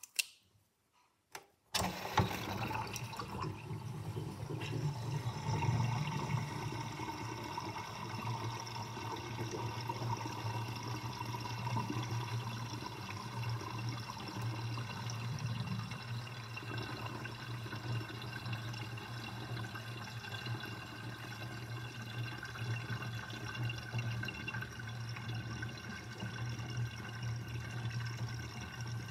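Water running down a kitchen sink drain through its drain basket with a steady gurgling, starting about two seconds in after a couple of short clicks.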